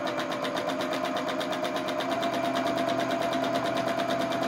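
Janome domestic sewing machine running continuously for free-motion stitching, the needle going in a rapid, even rhythm over a steady motor whine as the fabric is moved back and forth to shade in a design.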